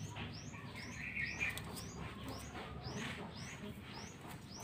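A small bird chirping over and over, short high chirps at an even pace of about two a second, with a brief soft rustle about a second in.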